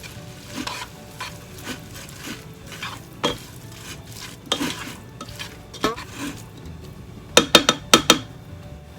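Cooking utensil stirring and tossing boiled spaghetti with vegetables and chicken in a frying pan, scraping against the pan over a low sizzle. Near the end, four sharp knocks come in quick succession.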